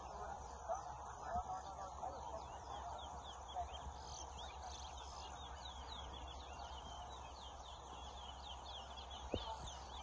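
Caged towa-towa (chestnut-bellied seed finches) singing in a whistling contest: a fast, unbroken run of short, high, sweeping whistled notes, busiest in the second half.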